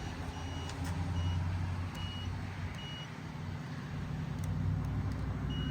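Short high beeps from a circuit tester as its probe touches the terminals of fuses, four in the first three seconds and one more near the end. A beep means power on that side of the fuse; a beep on only one side marks a blown fuse. A low steady hum runs underneath.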